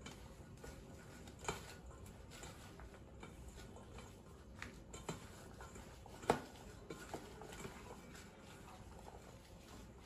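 A hand mixing a soft mashed potato, cheese and corn mixture in a stainless steel bowl: faint irregular squishing and patter, with a few sharp clicks, the loudest about six seconds in.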